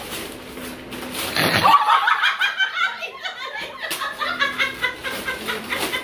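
A woman laughing in a long, quick run of high-pitched laughter that starts about a second and a half in, with wrapping paper rustling as she unwraps a gift.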